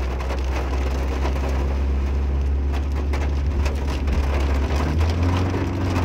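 Rain pattering hard on a car while its engine runs underneath in a steady low drone. The engine note shifts slightly about five seconds in. The car is straining on a steep, rain-wet, algae-slick slope where its wheels spin.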